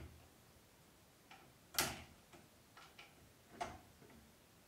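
A handful of light, irregular clicks and knocks from parts of a 3D printer being handled and fitted during assembly; the loudest comes about two seconds in.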